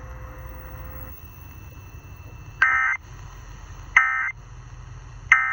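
Emergency Alert System end-of-message data tones: three short bursts of shrill warbling digital data, about 1.4 s apart, each starting with a click, over a low steady hum. They signal the end of the alert.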